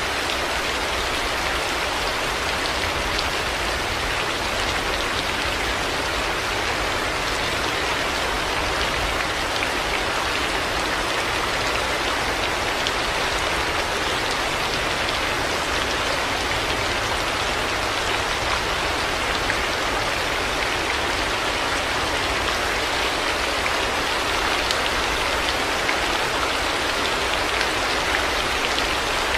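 Heavy rain falling steadily, a dense even hiss with fine patter of drops hitting surfaces.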